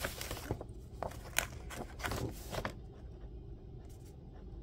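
Paper pages of a handmade grimoire being handled: a quick run of light paper rustles and taps over the first couple of seconds, then softer handling.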